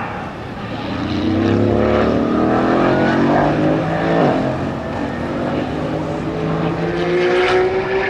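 Mercedes-AMG GT4's 4.0-litre twin-turbo V8 accelerating past on track, its note climbing in pitch and loudness, then dropping in pitch as the car goes by about four seconds in. Another engine note rises near the end.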